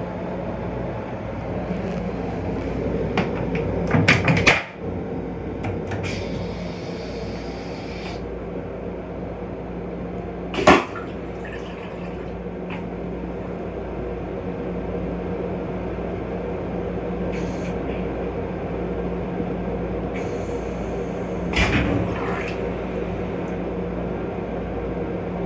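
Steady low hum of a Metro-North M7 electric railcar running, heard inside its restroom, broken by a few short knocks and clicks: a cluster about four seconds in, a sharp click near the middle and another knock near the end.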